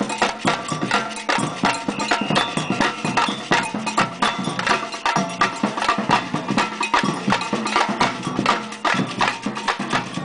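Batucada percussion ensemble playing a samba: drums and hand percussion in a dense, fast, steady rhythm.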